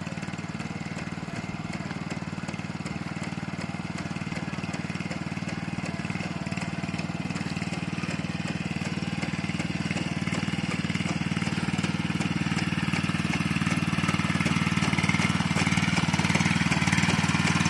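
Kubota walk-behind rice transplanter's small engine running steadily as it works through a flooded paddy, growing gradually louder as the machine comes closer.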